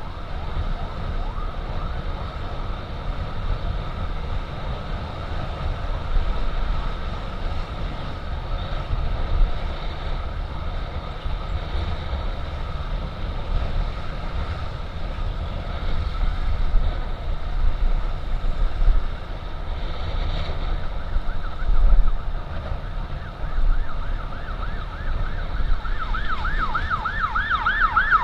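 Wind buffeting and a scooter's engine rumble while riding in traffic, with an emergency siren wailing faintly in the background. Near the end a fast-warbling siren grows loud.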